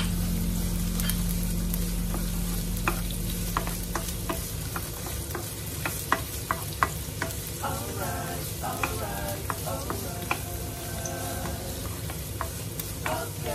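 Diced bottle gourd (upo) sizzling in hot oil in a nonstick wok, with a wooden spoon scraping and tapping against the pan as it is stirred.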